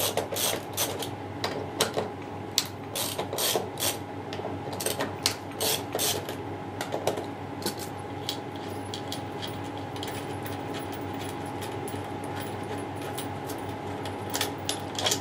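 Steel stator bolts on an LG direct-drive washing-machine motor being undone with a 10mm spanner: irregular metallic clicks and clinks, close together for the first half and sparser later, as the loosened bolts are turned out by hand.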